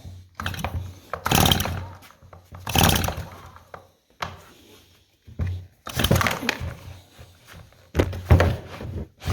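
Stihl MS290 chainsaw's recoil starter rope pulled several times, the engine cranking without firing, while an inline spark tester checks for spark.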